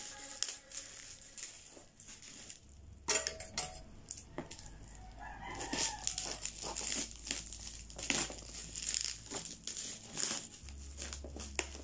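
Plastic bubble wrap crackling and crinkling as it is handled and cut open around a tripod box. A rooster crows about halfway through.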